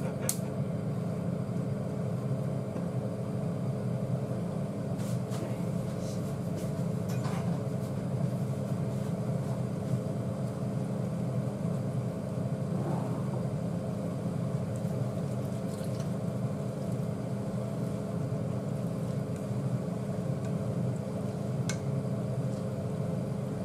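Steady low hum of running kitchen appliances by the cooktop, with a few light clicks of chopsticks and a metal strainer against the saucepan.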